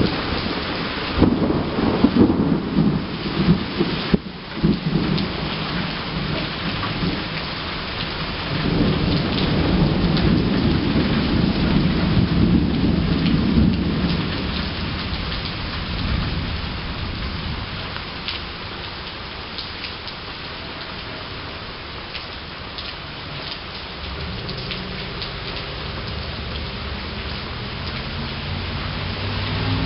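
Thunderstorm: rain falling steadily with thunder rumbling. There are loud rolls in the first few seconds, a long rumble from about nine to fourteen seconds in, and another building toward the end.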